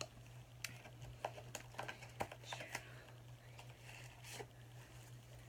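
Faint handling of a wallet and plastic cards: scattered small clicks, taps and short rustles as cards are slid out, over a low steady hum.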